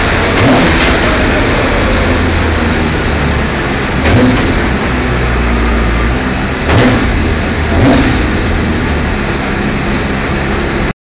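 BMW Z3 coupe race car's Terry Dolphin-built race engine running hard under load on a rolling road, with a loud, dense roar and a few brief louder surges. The sound cuts off abruptly near the end.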